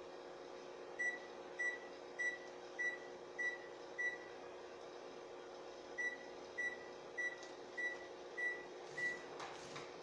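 Electronic beeper of a Brastemp washing machine's control panel giving short, high, evenly spaced beeps, about one every 0.6 s: six in a row, a pause of about two seconds, then six more.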